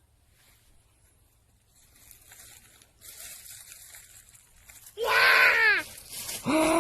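A high, loud scream falling in pitch about five seconds in, and a second falling scream near the end, after a few seconds of near silence and faint noise.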